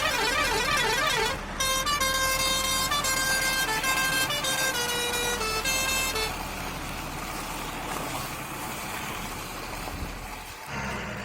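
Electronic sound effects of a battery toy vehicle. A warbling siren plays for about the first second, then a short beeping electronic tune runs to about six seconds in, followed by a few seconds of low rumbling noise. A steady low engine-like hum starts near the end.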